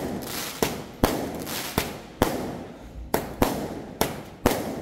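Firecrackers going off one at a time, a sharp bang roughly every half second at uneven intervals, each followed by a short echo.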